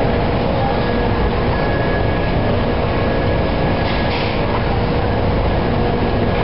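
Steady mechanical rumble with a faint hum, with a brief hiss about four seconds in.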